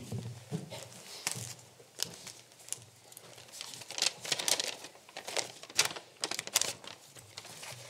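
Paper rustling and crinkling close to a microphone as sheets of notes are unfolded and handled at a lectern. It comes as irregular sharp crackles, thickest in the middle and later part.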